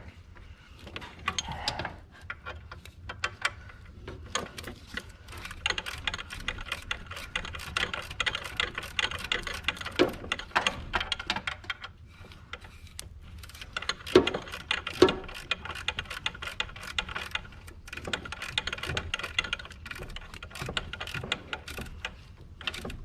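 Ratchet wrench clicking in fast runs while tightening the alternator's lower 12 mm mounting bolt, with a few louder knocks of metal on metal.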